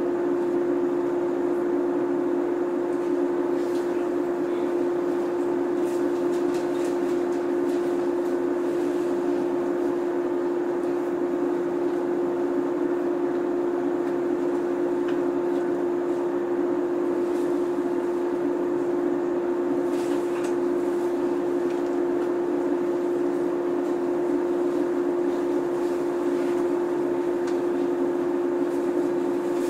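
JR 103 series electric train standing at a station before departure: a steady electrical hum from its running auxiliary equipment, one strong unchanging pitch with fainter overtones, with a few faint clicks.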